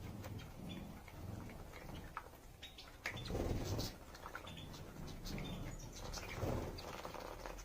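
Canaries bathing: irregular splashing and pattering of water as they flutter in the bath, with short chirps, and the loudest splash about three seconds in.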